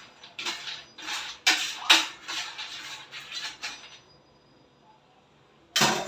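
Roasted peanuts rattling and scraping on a metal baking tray as they are stirred and handled with a utensil, in a run of short strokes about twice a second. The strokes stop about four seconds in, and a louder noise starts suddenly just before the end.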